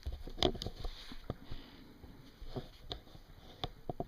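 A handful of light, separate clicks and taps, about seven spread irregularly over four seconds.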